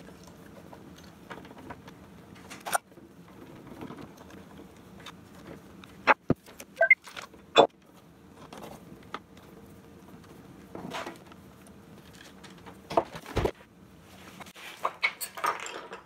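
Scattered plastic clicks, taps and knocks of a Roomba 650 robot vacuum being put back together by hand, with a screwdriver working on its screws. Sharper knocks come about six to eight seconds in and again around thirteen seconds.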